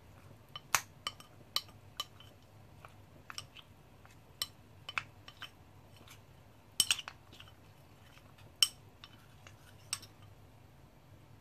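A metal spoon stirring a cornstarch slurry in a white bowl, clinking and tapping against the bowl's sides in irregular sharp clicks, a few of them louder.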